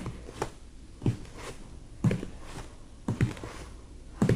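Slow footsteps on a wooden stage floor, about one step a second, over a low room hum.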